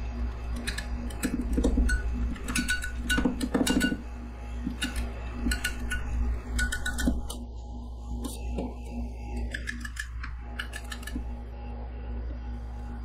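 Two metal scrapers chopping and tapping against a stainless steel rolled-ice-cream cold plate: rapid sharp clicks and knocks, densest in the first few seconds, then sparser. A steady low hum runs underneath.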